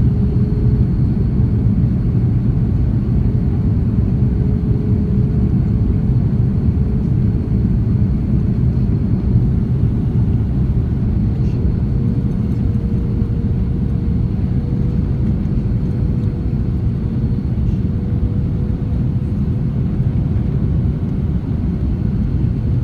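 Airbus A330-300 cabin noise in flight: the steady rumble of the jet engines and airflow, with a humming engine tone that edges slightly higher about halfway through.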